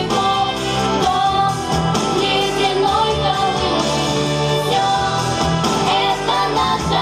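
A pop song sung over instrumental accompaniment, with a sung melody over steady, held bass notes.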